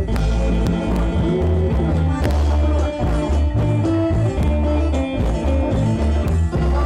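Live amplified Isan folk music for a khaen courting dance: khaen mouth organs playing sustained chords over a heavy bass line with steady percussion strokes.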